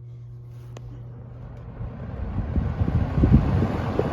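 Penncrest 200 20-inch box fan with an electrically reversible motor, spinning up on high speed in intake mode. A steady motor hum comes first, then a rushing of air from the blade that swells from about a second and a half in.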